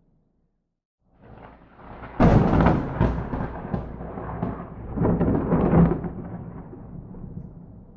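A thunderclap: after about a second of silence it builds, breaks into a sharp loud crack about two seconds in, rumbles on, swells again around five to six seconds in, then slowly fades. No rain is heard with it.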